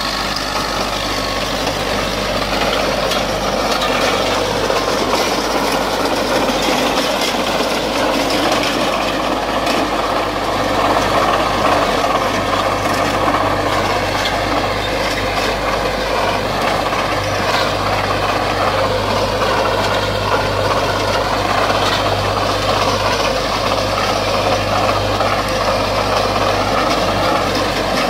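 IMT 577 tractor's diesel engine running steadily under load as it drives a 2.5 m Maschio rotary power harrow working the soil, with the harrow's rotors and gearbox churning alongside.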